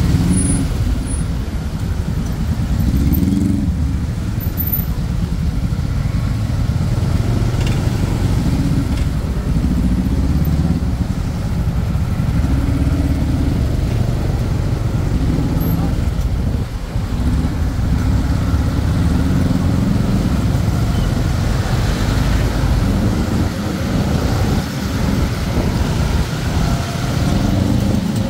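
Motorcycle taxi's engine running as it rides through slow, dense city traffic, with the engines of the surrounding cars and motorbikes and road noise around it.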